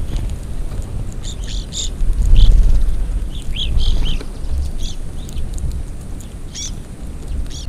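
Small birds chirping: short, high chirps come in quick clusters throughout, over a low rumble of wind on the microphone.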